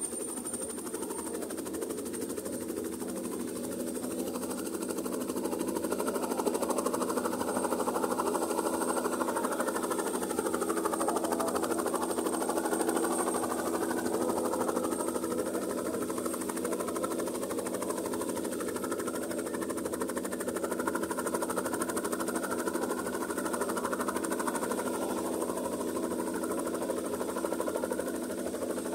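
Light helicopter running on the ground with its rotor turning: a steady engine drone with a fast chop and a thin, steady high whine, growing louder about five seconds in.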